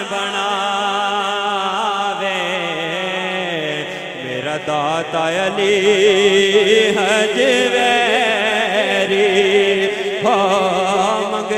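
Male voice singing an Urdu naat into a microphone in long, drawn-out, wavering melismatic notes, over a steady lower held tone.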